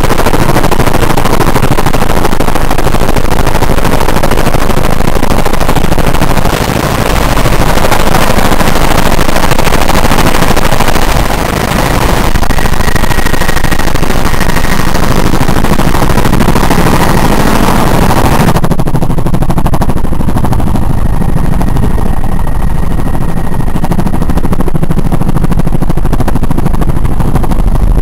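Helicopter rotor and engine noise heard from inside the cabin, loud and continuous with a rapid chopping beat. About two-thirds of the way in, the hiss on top drops away, leaving mainly the low throb as the helicopter comes down to land.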